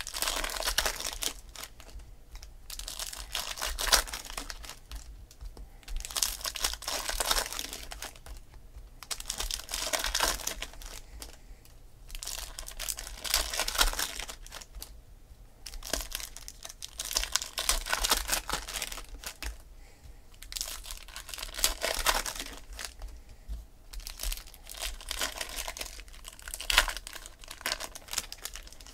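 Foil baseball card pack wrappers crinkling and tearing open by hand, with the cards inside handled, in repeated bouts every few seconds.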